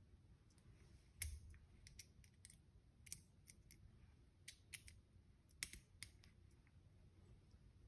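Faint, irregular sharp clicks of small metal parts being handled: a small tool and set screws working in an Elftman ELF-SE drop-in AR trigger housing held in the hand. About nine clicks, the loudest about a second in and again near the six-second mark.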